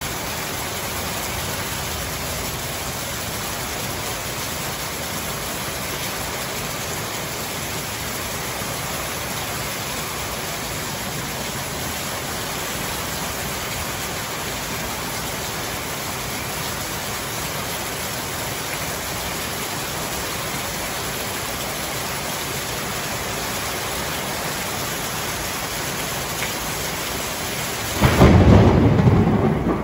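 Heavy rain falling steadily on garden plants and paving, an even hiss. About two seconds before the end, a loud low rumble of thunder breaks in.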